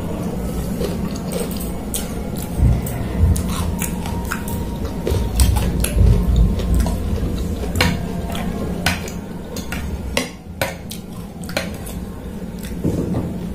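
Metal spoon and fork clinking and scraping against a ceramic plate, many short separate clicks. A few dull low thumps come in between, loudest about six seconds in.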